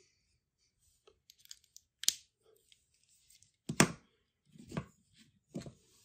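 Small plastic-and-metal clicks and handling noise as a 9-volt battery snap connector is clipped onto the battery's terminals. The two loudest clicks come about two seconds in and just before four seconds in.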